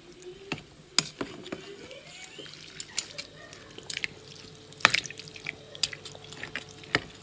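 Metal tongs stirring and lifting rice vermicelli in soup broth: wet sloshing and dripping, with scattered sharp clicks and taps of the tongs, the loudest about five seconds in.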